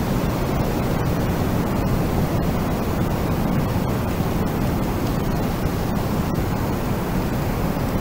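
Wind: a steady, even rush of noise, heaviest in the low range, with no gusts or swells.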